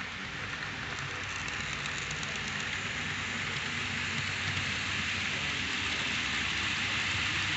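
Model freight train rolling along the layout track: a steady hissing rattle of wheels on rails that grows slowly louder as the train passes close by.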